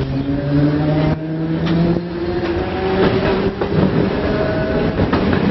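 Streetcar running along its tracks: a motor whine slowly rises in pitch as it picks up speed, over a steady rumble and rattle with sharp clacks every second or so.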